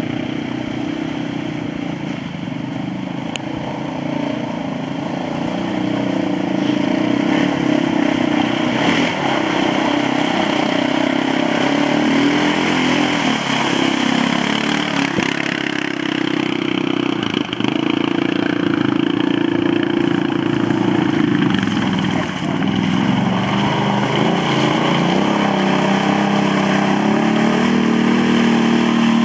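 Quad bike (ATV) engines revving up and down as the quads churn through deep mud, the engine note getting louder about six seconds in.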